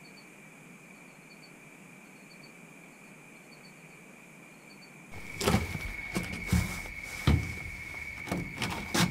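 Quiet dusk ambience with faint high chirps repeating now and then. About five seconds in, it gives way to irregular knocks and bumps of someone shifting around on the floor of a hunting blind.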